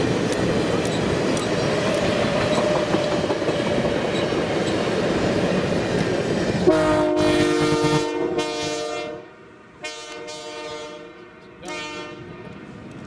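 Passenger train cars rolling past on the rails, a steady clattering rumble. About a third of the way in, a train whistle starts sounding a chord, a long blast followed by shorter ones, while the rolling noise fades.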